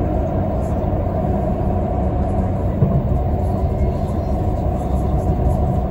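Steady rumble of a moving passenger train heard from inside the carriage: wheels running on the track at speed.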